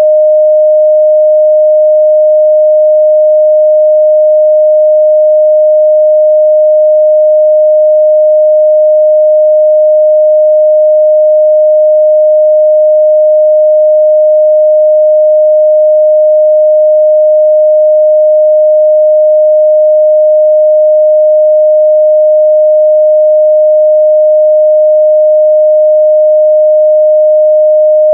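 A steady, loud 614 Hz sine-wave test tone, one pure unchanging pitch.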